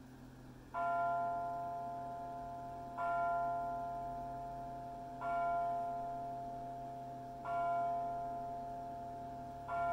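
Grandfather-clock hour strike for eight o'clock: a deep bell tone struck about every two seconds, each stroke ringing out and fading before the next, five strokes in all. A faint steady hum lies underneath.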